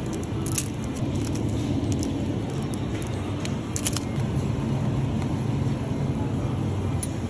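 Steady low hum of a supermarket's refrigerated display cases and store background. A few light clicks and rustles come as plastic-wrapped snack packets are handled and dropped into a plastic shopping basket, one near the start and a pair about four seconds in.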